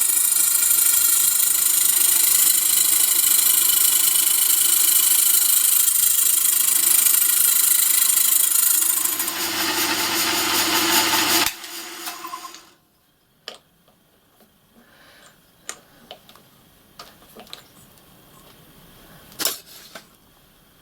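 Milling machine motor and spindle running steadily while a screwdriver slot is cut in a small spoke nipple, then switched off about eleven and a half seconds in; a few light clicks and taps follow as the part is handled.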